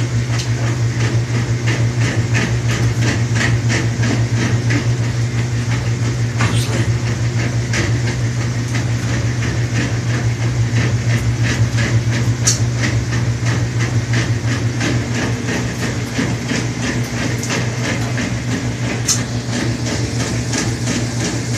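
Home laundry machine running: a steady motor hum with light clicking about two to three times a second.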